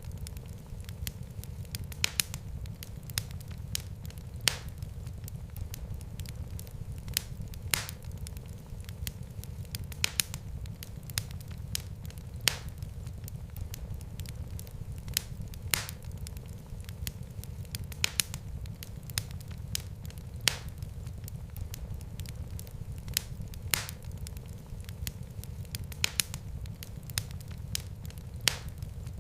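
Wood fire burning in a fireplace: a steady low rumble of flames with irregular sharp crackles and pops from the burning wood.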